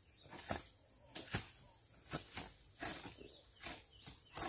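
Hoe blades striking and chopping into soil and weeds while weeding: a series of sharp, irregular strikes, about two a second, some in quick pairs.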